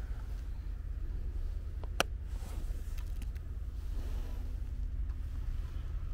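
A single sharp camera shutter click about two seconds in, followed by a couple of fainter clicks, over a steady low outdoor rumble.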